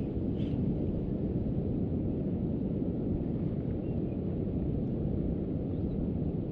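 Wind buffeting the microphone: a steady low rumble with no clear pattern.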